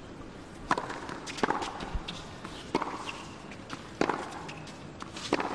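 A tennis rally: the ball is struck by rackets five times, a sharp pop roughly every second and a quarter, with fainter ball bounces and shoe sounds in between.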